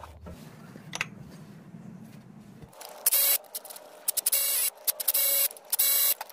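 Milwaukee cordless electric ratchet running in about five short bursts from about three seconds in, spinning out pre-loosened water pump bolts on a GM 3.6L V6. Before that, light handling and a single click.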